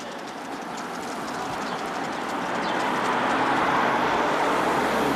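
A passing vehicle on the road: a rushing noise that swells over a few seconds, loudest near the end.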